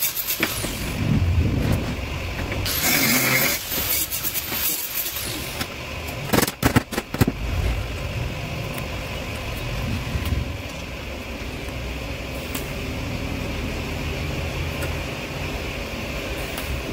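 A small angle grinder runs briefly on stainless steel tube, then a quick run of hammer knocks on a stainless square-tube frame about midway, over a steady machine hum.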